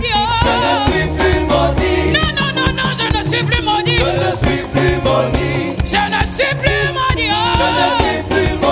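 Live gospel praise music: a woman sings the lead into a microphone with a wavering vibrato, over a full band with a steady beat.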